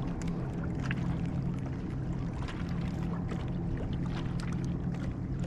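Steady low mechanical hum, like a motor running, with faint scattered clicks over it.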